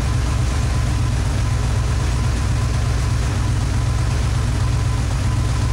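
Porsche 911's flat-six engine idling steadily with the air conditioning running while R-134a refrigerant is being charged in, with a faint steady whine above the low rumble.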